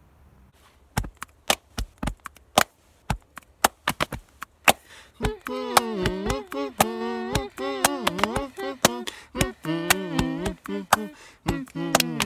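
Body percussion: a rhythm of hand claps and slaps on the chest. From about five seconds in, wordless a cappella singing joins over the beat.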